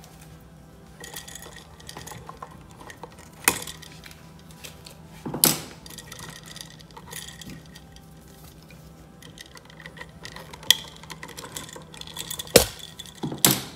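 Hands working tools and metal wiring hardware: several sharp metallic clicks and knocks a few seconds apart, with light rustling and handling between them.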